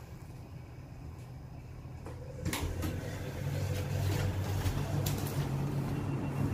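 Lift doors clunking and sliding open about two and a half seconds in, with a steady low hum that gets louder after the clunk.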